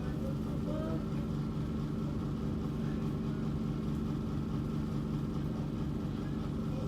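Steady low machine hum running without change.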